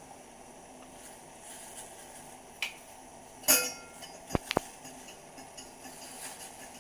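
Metal kitchen utensils and vessels clinking: a light tap, then a louder ringing clink about three and a half seconds in, followed by two quick sharp clicks.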